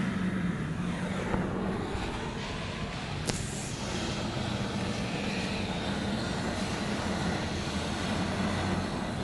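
Steady rushing mechanical noise with a constant low hum, and one sharp click about three seconds in.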